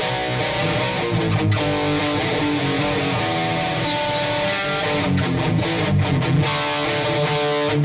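Epiphone Les Paul Custom electric guitar played with a distorted tone, sustained notes and chords, with several short clipped breaks about five to six and a half seconds in.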